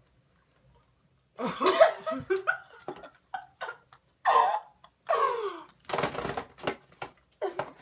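Two people laughing and spluttering in short, breathy bursts, muffled by mouths stuffed with cough drops, starting about a second and a half in.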